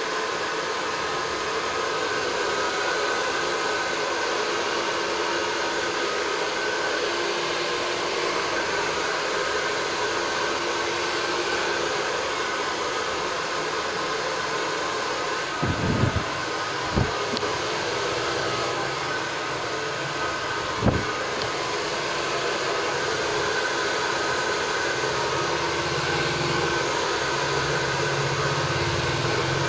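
Handheld hair dryer blowing steadily on high, its motor giving a faint steady whine, as long hair is blow-dried and brushed straight. A few short thumps break in about halfway through.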